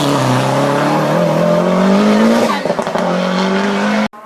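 Race car engine at full throttle, its pitch climbing, dropping briefly at a gear change about two and a half seconds in, then climbing again. The sound cuts off abruptly near the end.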